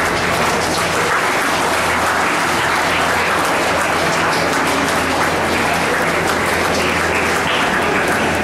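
Audience applauding steadily with hand claps, over a faint steady low hum.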